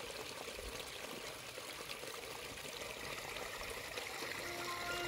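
Small rocky brook trickling and splashing over stones in a steady wash of running water.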